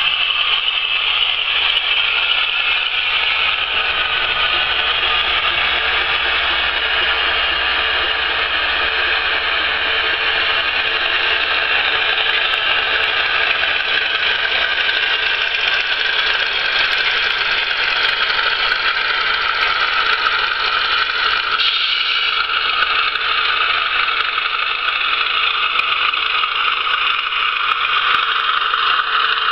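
Hornby Class 31 model locomotive's onboard sound unit playing a steady Class 31 diesel engine sound through its small speaker as the loco runs. The engine note drops in pitch about two-thirds of the way through.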